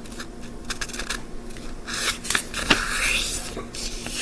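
A sheet of paper being folded and creased by hand: scattered crinkles and clicks, with denser rustling from about halfway through.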